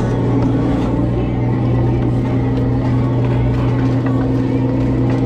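Fishing boat's engine running with a steady low drone. Faint knocks and clatter of crabs and the wire crab pot on the steel sorting table come through now and then.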